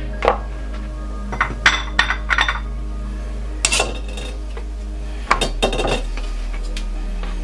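Scattered knocks and clinks of vegetable prep: a chef's knife and carrots knocking on a wooden cutting board and against a small glass bowl, then leeks set down on the board, over steady background music.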